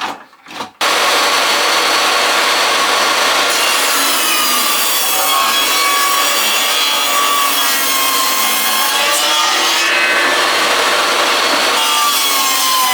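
Table saw ripping a wood board into a narrow strip. It comes in abruptly about a second in and runs loud and steady, its whine wavering in pitch as the blade cuts.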